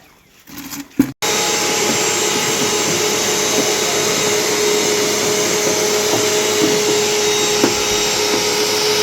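A motor-driven blower running steadily: a loud even rushing noise with a constant hum, starting abruptly about a second in.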